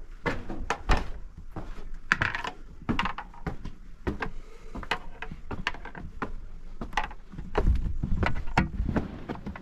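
An irregular run of sharp knocks and thuds, two or three a second, over a low rumble.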